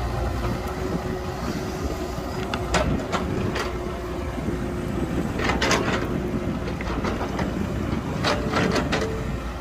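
Excavator at work, its diesel engine running steadily with a steady whine through the first half. Sharp knocks and clatter come in small clusters, about three seconds in, around six seconds and again near the end.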